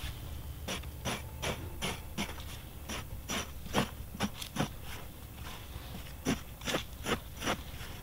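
A small hand hoe's metal blade chopping and scraping into dry, sandy soil in quick strokes, about two to three a second, with a short pause past the middle.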